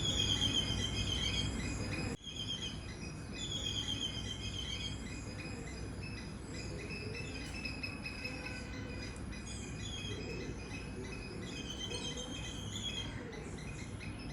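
Tropical outdoor ambience: birds calling in short, repeated chirping phrases every second or two over a steady high-pitched insect drone, with a low, even rumble underneath. The recording cuts to a slightly quieter take about two seconds in.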